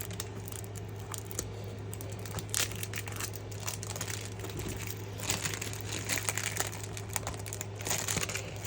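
Plastic packaging crinkling and rustling in irregular crackles as a package is handled and pulled at to get it open, over a steady low hum.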